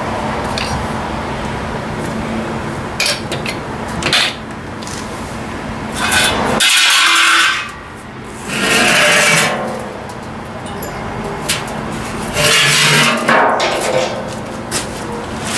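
Steel of a cut 55-gallon drum being scraped and rubbed, in three loud scraping stretches about six, eight and a half and twelve and a half seconds in, with a few knocks. A steady hum underlies the first half and stops about six and a half seconds in.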